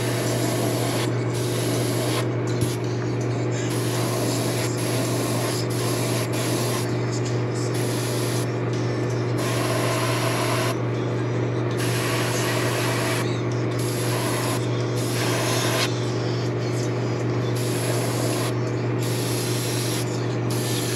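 Airbrush spraying paint onto a hard-bodied fishing lure in on-and-off bursts of hissing air, over a steady low hum.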